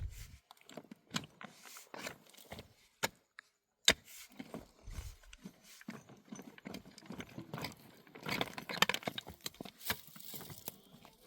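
Irregular knocks, clicks and rustling from wood and branches being handled, with one sharp knock about four seconds in and a busier stretch of rustling and knocking near the end.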